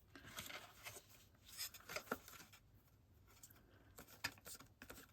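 Near silence with faint rubbing and a few soft taps: paper being pressed down onto the sides of a card box.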